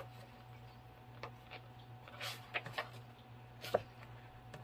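Pages of a large hardcover book being turned by hand: a few short paper swishes and soft taps, over a faint steady hum.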